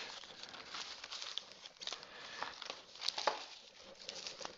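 Paper and packaging crinkling as they are handled, with a few sharp clicks, the sharpest about three seconds in.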